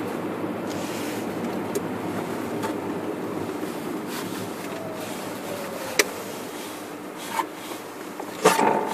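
Car driving on a snow-packed road: a steady rumble of tyres and engine, with a faint whine that drops in pitch past the middle. A sharp click comes about two-thirds through, and a couple of louder knocks near the end.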